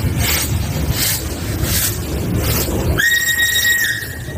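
Steam locomotive running, with about four evenly spaced exhaust chuffs over a low rumble, then its steam whistle sounds about three seconds in as one long, steady high note.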